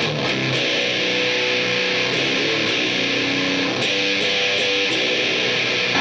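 Electric guitar played through the Death By Audio Fuzz War fuzz pedal into a Peavey 6505MH amp, a heavily distorted riff of changing notes.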